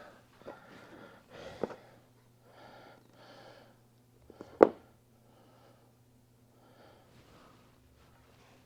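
A man breathing hard through his nose in soft repeated puffs while he works, with a sharp click about four and a half seconds in and a fainter one earlier, over a low steady hum.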